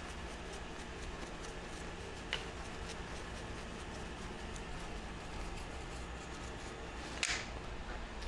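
Paintbrush sweeping aluminium chips off a steel milling-machine vise: faint scratching and light ticks over a steady low hum, with a sharp click about two seconds in. Near the end a louder clack as the brush is laid down on the metal mill table.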